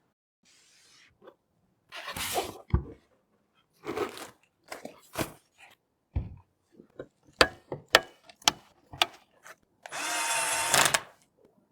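A small electric screwdriver whirring steadily for about a second near the end, amid sharp clicks, snaps and knocks of computer parts being handled and fitted.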